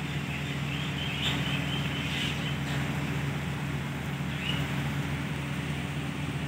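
Outdoor ambience: a steady low mechanical hum, like a nearby engine, with birds chirping for a couple of seconds near the start and once more briefly near the middle.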